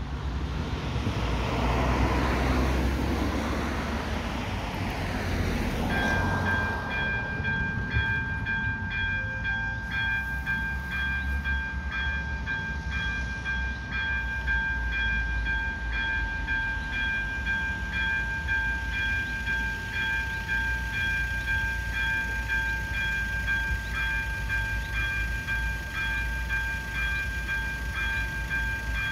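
A vehicle passes in the first few seconds. About six seconds in, the AŽD 71 level-crossing warning signal starts sounding: a steady high electronic ring with a regular ticking beat, warning of an approaching train.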